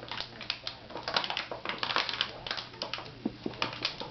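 A puppy chewing on an empty plastic water bottle, the thin plastic crackling and crinkling in quick, irregular clicks.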